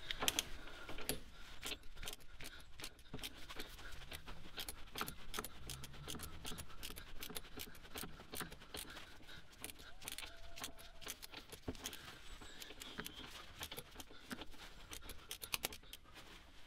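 Torque wrench ratchet clicking in quick, irregular runs as the bolt of a bush installation sleeve tool is wound in, pressing a new rear axle bush home.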